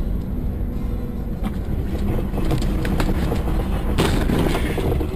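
Car on the move: a steady low rumble of road and engine noise, with a few sharp knocks and a louder noisy burst about four seconds in.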